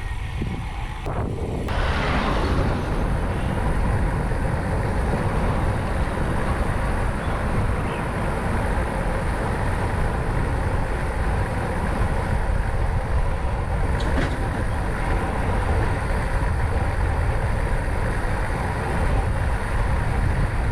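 Steady rumble of wind and road noise while riding, recorded on a GoPro Hero 8 fitted with a windscreen cover that damps the wind noise on its microphone.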